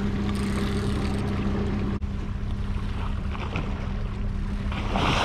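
Honda outboard motor on a small fishing boat running steadily with a low, even hum, over wind and water noise.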